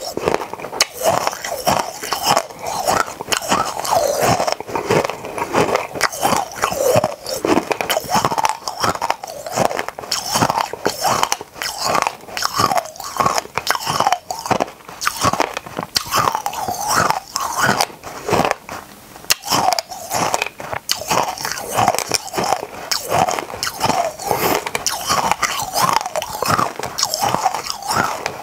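Close-miked crunching and chewing of hard mini candies: rapid, irregular sharp cracks and crackles as the candies are bitten and ground between the teeth, going on without a break.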